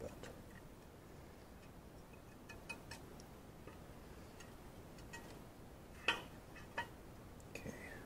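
Scattered light clicks and taps of metal parts and tools being handled, with one sharper knock about six seconds in, as a motorcycle valve cover is worked loose from its gasket.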